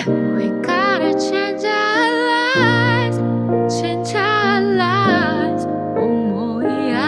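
Song: a singer holding long, wavering vocal lines with vibrato over piano and sustained keyboard chords, with a low bass note entering about two and a half seconds in.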